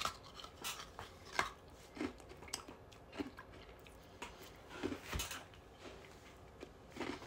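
Someone biting and chewing a frozen Gatorade ice pop: irregular crunches and clicks of ice between the teeth, with short gaps between them.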